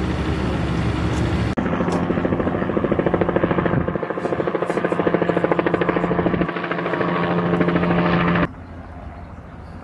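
A steady rumble, then from about a second and a half in a loud engine running with a fast, regular pulsing beat, which cuts off suddenly near the end, leaving a quieter background hiss.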